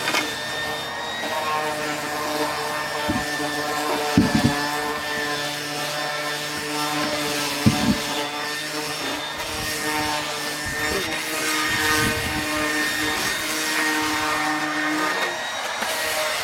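Electric power sander running steadily with its motor hum, sanding against wood, with two sharp knocks about four and eight seconds in. The motor's pitch shifts slightly near the end.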